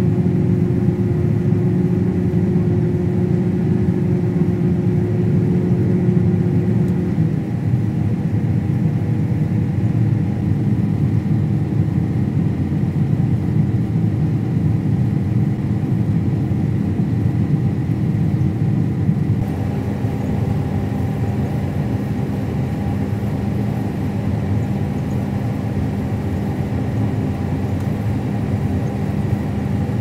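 John Deere combine running while harvesting wheat, heard from inside the cab: a steady engine and threshing drone with several steady hum tones, which shift slightly about seven and about nineteen seconds in.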